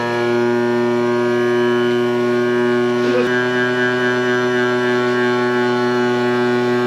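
Electric motor of a powered piston ring gap filer running at a steady speed, giving a constant droning hum, with one short click about three seconds in.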